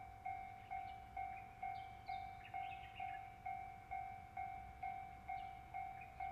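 Electronic level-crossing warning bell ringing in an even rhythm of about two strikes a second, each strike sharp then fading: the signal that a train is approaching. Birds chirp a few times over it.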